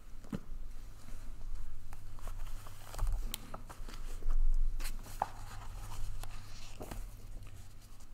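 Paper and book pages rustling and being handled at a wooden lectern: a hymnbook closed, a sheet lifted and pages turned, with scattered soft clicks and brushing sounds over a low steady hum.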